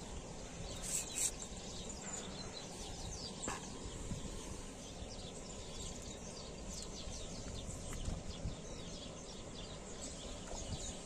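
Outdoor waterside ambience: a steady low rumble of wind with many small bird chirps throughout.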